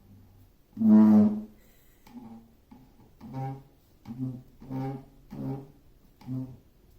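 Fart sound effect played for a dog: one loud, drawn-out fart about a second in, then a string of shorter, quieter farts.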